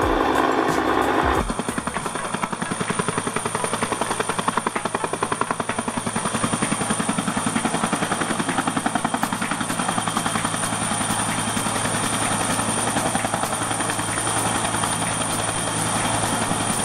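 A brief steady hum cuts off about a second and a half in, giving way to a helicopter with a two-bladed main rotor hovering low over water: a fast, even rotor beat with a steady high whine above it.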